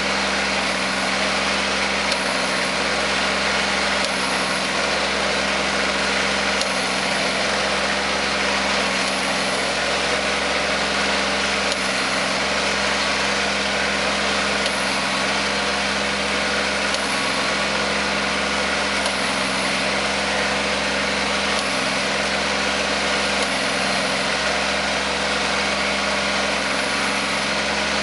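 Kubota compact tractor's diesel engine running steadily under load as it pulls a ridger through the soil, a constant hum with no change in speed.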